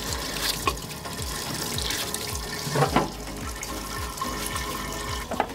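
Parts-washer solvent streaming from a flow-through brush hose over a motorcycle shock's shaft and seal head and splashing into the washer tub, rinsing grit off before the shock is taken apart. A couple of short knocks come through over the running fluid.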